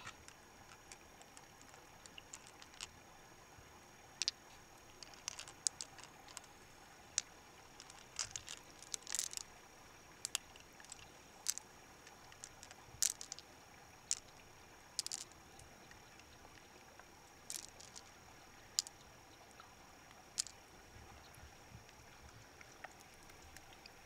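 Sparse, sharp clicks and light taps of hard objects being handled, roughly one every second or two, over a faint steady hiss with a thin high whine.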